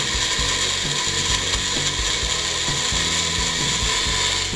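Bullet-style personal blender running steadily, its motor chopping onion, garlic and water with coarse salt and dried herbs into a marinade paste. It stops abruptly at the end.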